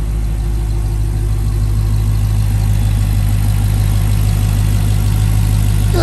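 Dodge 392 Scat Pack's 6.4-litre HEMI V8 idling with a steady low hum, warming up after a cold start.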